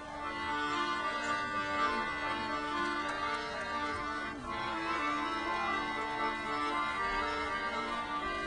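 Instrumental music of long sustained chords.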